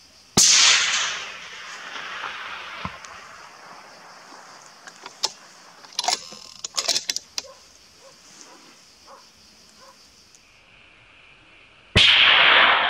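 Two hunting-rifle shots about eleven and a half seconds apart, each a sharp crack that rolls away in a long echo. Between them comes a quick run of sharp clicks and knocks.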